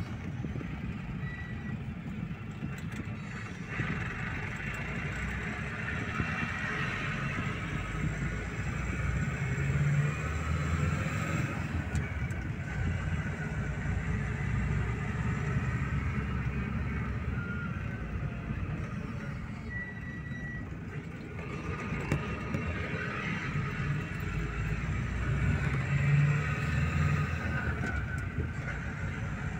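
A car driving on town streets, heard from inside the cabin: steady engine and road noise that swells and eases a little with speed.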